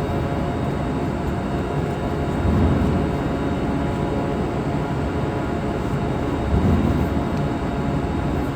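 Steady rushing background noise with a faint hum and a low rumble that swells twice, like machinery or traffic.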